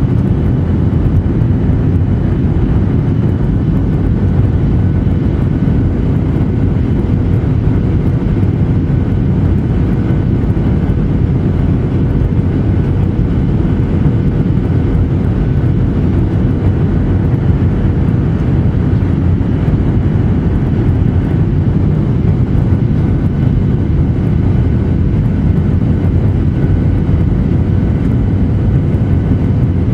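Steady cabin noise inside a Boeing 737-800 airliner on final approach: a dense, even low rumble of airflow and its CFM56 turbofan engines, with a faint steady hum over it.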